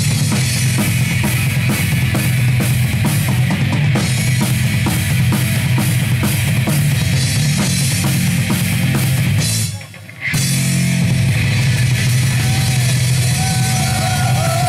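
Heavy metal band playing live without vocals: rapid drumming under distorted guitar and bass. The band stops dead for about half a second near the middle, then crashes back in, and a bending lead guitar line comes in near the end.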